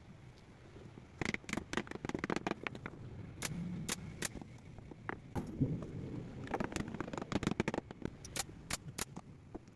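Irregular sharp clicks and knocks, several close together at times, over a low rustling handling noise, as of hard objects being handled and set down by hand.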